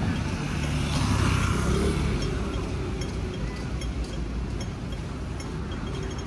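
Street traffic running past a pedestrian crossing, a low rumble that swells as a vehicle passes about one to two seconds in. Under it, the crossing's audible signal ticks slowly, quickening into rapid ticks right at the end as the signal turns to walk.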